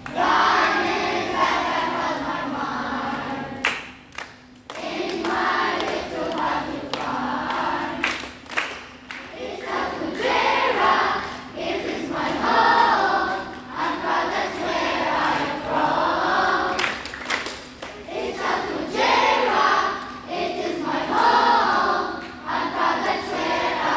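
A children's choir singing together in sustained phrases, with a brief pause about four seconds in.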